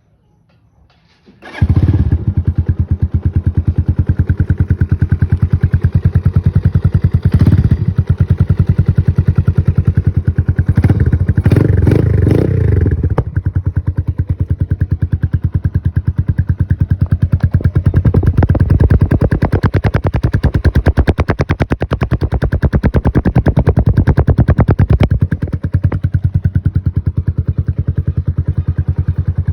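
Rusi Flash 150 motorcycle with an aftermarket Akrapovic exhaust starting about a second and a half in, then running with a loud, pulsing exhaust note. The throttle is blipped about seven seconds in and again for a couple of seconds around eleven to thirteen seconds, and it settles back to a lower idle near the end.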